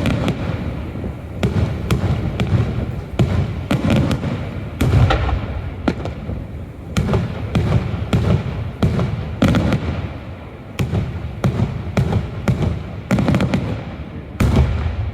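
Daylight fireworks display: a rapid, irregular series of sharp bangs and deeper rumbling booms, about two or three a second, with echoes trailing between them.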